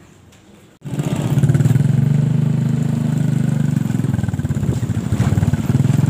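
Faint background, then about a second in a motorcycle engine cuts in abruptly and runs steadily with a fast, even pulse as the bike is ridden.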